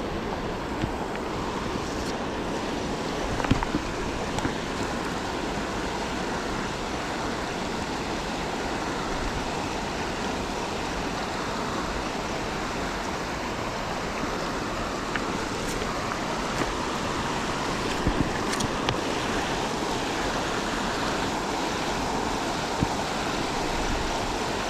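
Steady rush of flowing creek water, with a few brief knocks.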